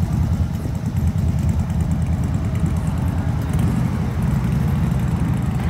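Steady low rumble of car engines running.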